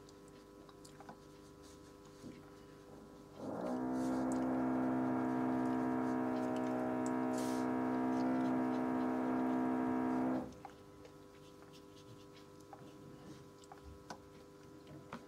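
Airbrush compressor motor switching on about three seconds in, running with a steady hum for about seven seconds, then cutting off abruptly.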